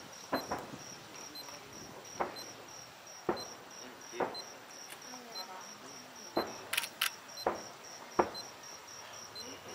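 Distant aerial firework shells bursting: a string of separate dull bangs at irregular intervals, about seven in all, the sharpest near the end. Under them, crickets chirp steadily about three times a second.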